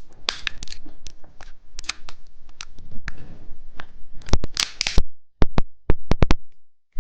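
Plastic candy packaging being handled and crinkled: a quick run of crackles and clicks, then a few sharp separate clicks near the end.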